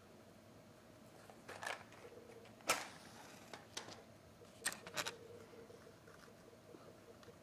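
Matches being struck: a short scrape about a second and a half in, then a sharper, louder strike a second later with a brief hiss after it, followed by a few light clicks.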